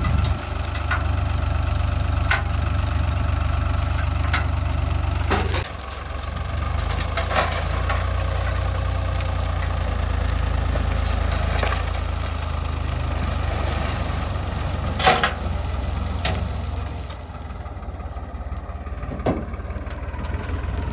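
Heavy diesel machinery engine running steadily at low revs, with a few sharp clanks scattered through it. The engine drops briefly about five seconds in and eases off near the end.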